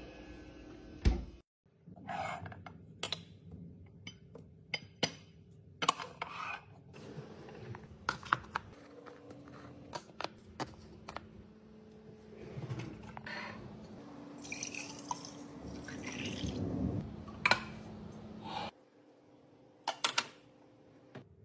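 Kitchen containers and dishes being handled and set down: a string of sharp clicks and knocks, with a louder, noisier stretch about two-thirds of the way through.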